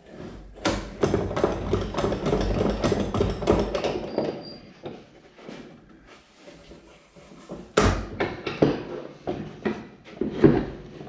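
Glued-up oak and alder panel and its bar clamps being handled: a quick run of wooden knocks and clatter for the first few seconds, then a single sharp knock just before eight seconds and a few scattered knocks after it.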